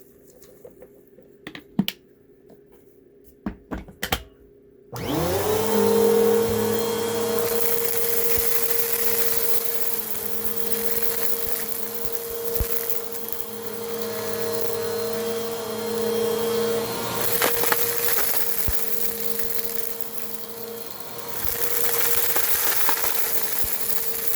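Bissell vacuum cleaner: a few clicks, then about five seconds in the motor switches on and spins up to a steady whine. It runs with its brushroll turning, the airflow hiss rising and falling.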